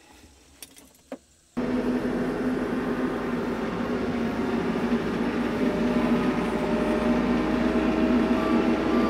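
TYM T574 compact tractor's diesel engine running steadily as the tractor drives. The sound starts suddenly about one and a half seconds in, after a couple of faint clicks, and grows slightly louder.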